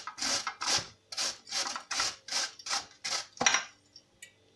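Carrot being grated by hand on the fine side of a stainless-steel box grater: quick, even rasping strokes, about two to three a second, that stop about three and a half seconds in.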